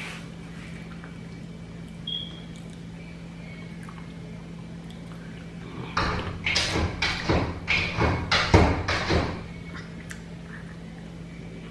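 A dog knocking at a closed door: a burst of about eight thumps lasting some three seconds, over a steady low hum.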